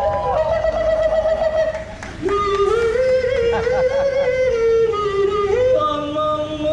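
Music with a slow melody of long held notes that slide from one pitch to the next, in three long phrases.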